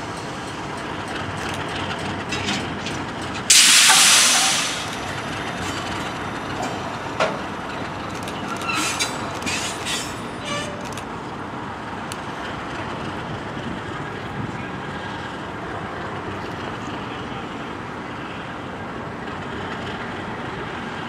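Alco RS32 diesel locomotive, with its V12 Alco 251 engine, idling steadily. About three and a half seconds in, a sudden loud blast of compressed air hisses from the air-brake system for about a second and then dies away. A few short metallic clanks follow a few seconds later.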